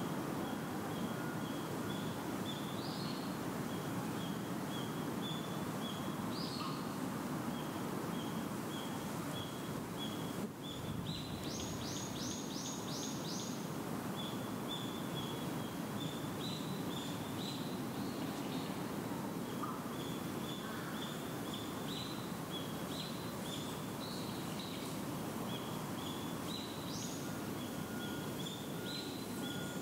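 Outdoor ambience: steady low background noise with a bird repeating short high chirps in runs, and a quicker burst of higher notes about twelve seconds in.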